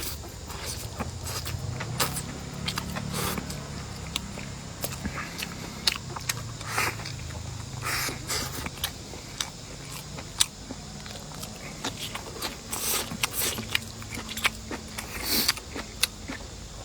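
A person eating close to the microphone: chewing and mouth sounds, with many short clicks and scrapes scattered throughout.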